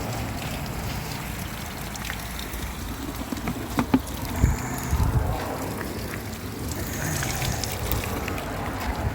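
Spring water running steadily from a refill spout into a plastic water jug, with a few knocks about halfway through.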